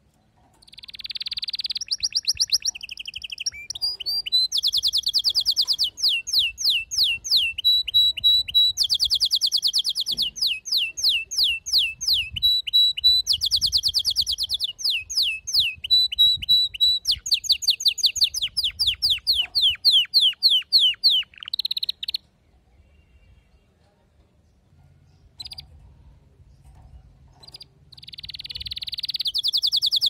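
Male canary singing: long runs of rapid trills, each a fast string of repeated downward-sweeping notes, broken now and then by short steady whistled notes. The song stops about two-thirds of the way in, a few soft notes follow, and the song starts again near the end.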